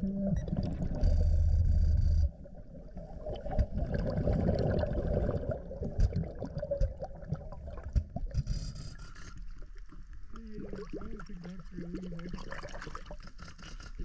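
Underwater sounds of a scuba diver breathing through a regulator: a loud bubbling rumble with hiss about a second in, another hiss later, and scattered knocks. A low wavering tone runs through the last few seconds.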